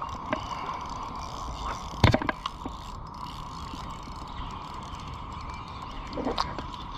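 Spinning reel being cranked steadily to retrieve line, its gears giving a continuous whir, with a sharp knock about two seconds in.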